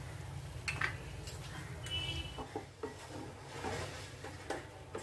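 Flat wooden spatula stirring and scraping thick semolina halwa in a nonstick frying pan, with scattered clicks and knocks against the pan over a steady low hum.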